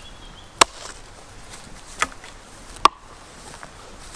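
Hatchet chopping a thin branch laid across a tree-stump chopping block: three sharp strikes, the first about half a second in, the others about two and three seconds in.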